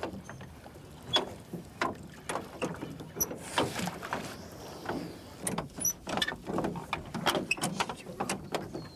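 Oars working in the oarlocks of a rowboat as it is rowed round, giving irregular knocks and clunks. Water washes briefly about three and a half seconds in.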